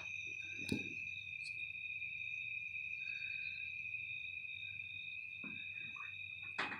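Crickets trilling steadily in several high, unbroken tones over a low background hum, with a few short knocks near the start and one near the end.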